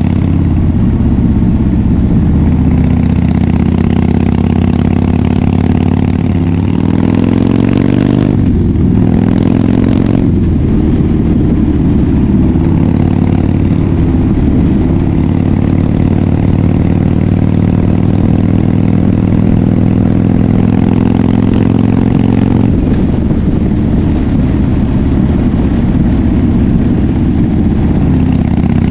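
2011 Harley-Davidson Fat Bob's V-twin engine running through a KessTech exhaust while riding. The pitch rises about six seconds in, changes briefly around eight to ten seconds, then holds a steady cruising note that shifts again a little past twenty seconds.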